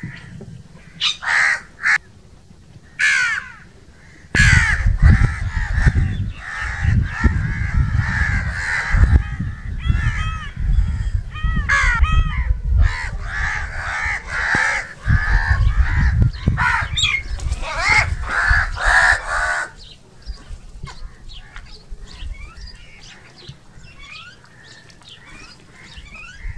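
Several crows cawing, with harsh calls overlapping one another. A few short caws open, the calling turns into a dense chorus from about four seconds in until about twenty seconds, with a low rumble underneath, and then it thins to fainter, scattered caws.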